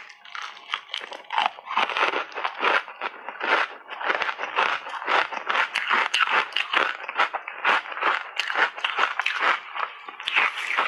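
Ice chips coated in matcha and milk powder being bitten and chewed, close to a lapel microphone: a fast, irregular run of crisp cracks and crunches.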